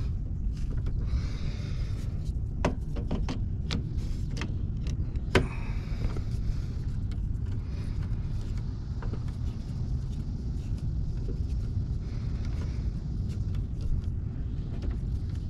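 A steady low rumble, with a few sharp metallic clicks and taps a few seconds in as hand tools and stiff wire knock against the breakers and the metal of a residential breaker panel.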